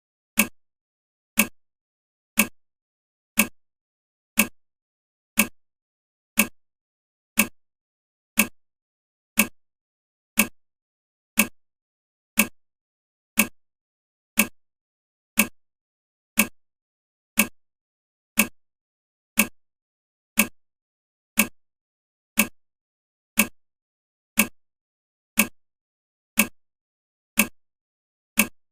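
Countdown timer ticking steadily, one sharp tick each second with silence between.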